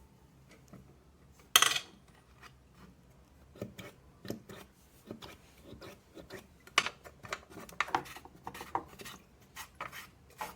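Metal parts of an industrial sewing machine being handled: one loud brief scrape about a second and a half in, then a run of small clinks, taps and scrapes.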